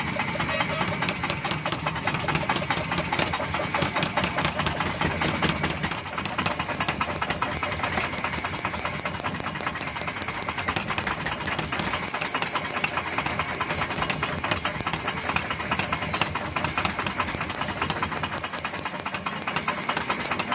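Mechanical power hammer running and pounding a red-hot steel axe head on its anvil: a fast, even run of heavy mechanical blows. The deeper thud fades about six seconds in, while the rapid machine strokes carry on.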